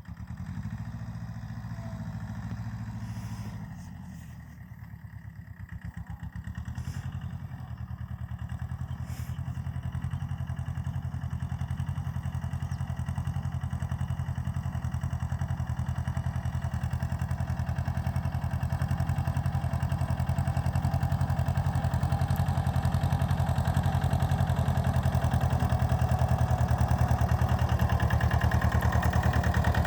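Mahindra Jivo compact tractor's diesel engine running steadily. It dips briefly about five seconds in, then grows gradually louder.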